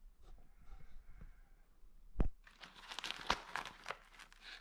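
A hydration pack being handled: a knock about two seconds in, then a couple of seconds of dense crinkling and rustling as the bladder compartment is pulled open and the plastic water bladder and pack fabric shift inside it.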